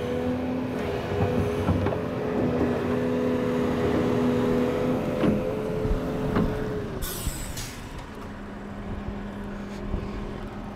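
Diesel engine of a tracked excavator running under load as it pushes a stuck low-loader trailer across wet ground: a steady drone whose pitch drops about seven seconds in, together with a short hiss of air. A few knocks sound along the way.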